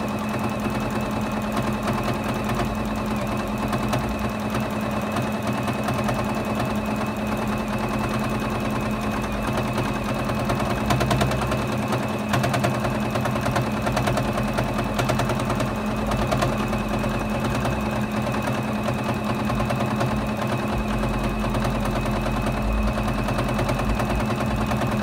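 Juki Exceed HZL-F600 domestic sewing machine running steadily, its needle stitching through a layered, batted quilt as the quilt is moved freehand under the foot for free motion quilting.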